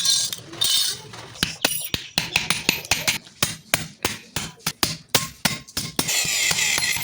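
Rapid, irregular series of hammer strikes and metal clinks on steel, followed from about six seconds in by a steady hissing noise.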